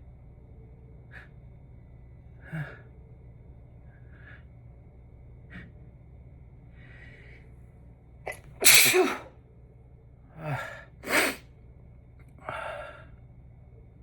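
A person's short catching breaths building up, then a loud sneeze about nine seconds in and a second sneeze about two seconds later.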